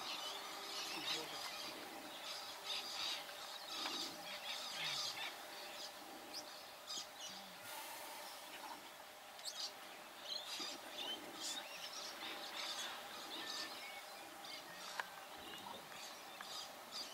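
Outdoor ambience of birds chirping and calling on and off throughout, over a steady background hush.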